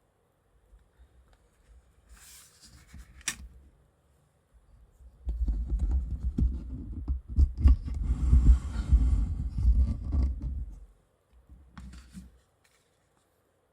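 Close handling noise: rubbing and scraping with scattered clicks, faint at first with a sharp click about three seconds in, then a loud stretch of low rubbing and knocking from about five to eleven seconds in.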